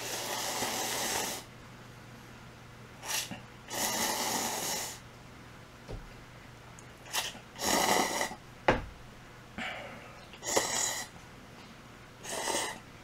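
Close-miked eating sounds: a person's loud breaths and mouth noises while eating spicy chicken dishes, coming in a series of short noisy bursts of up to about a second each.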